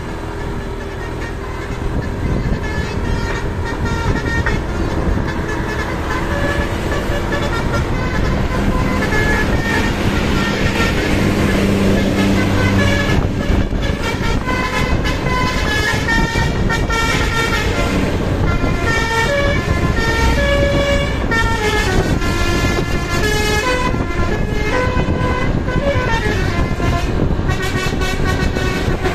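Indonesian bus 'telolet' horn, a multi-trumpet air horn, playing a quick tune of short notes at changing pitches, more and more notes toward the later part, over the bus engine running.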